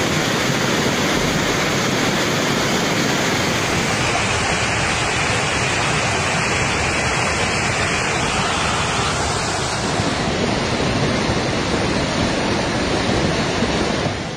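Fast-flowing floodwater rushing down a street in a steady, loud torrent.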